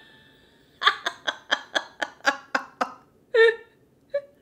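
A woman laughing: a quick run of about ten short laughs over two seconds, then one louder laugh and a short one near the end.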